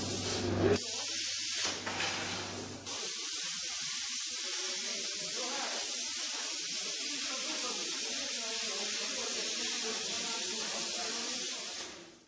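Plasma cutter cutting metal, with the steady loud hiss of the arc and its air jet. There are a few brief breaks in the first three seconds, and it fades out near the end.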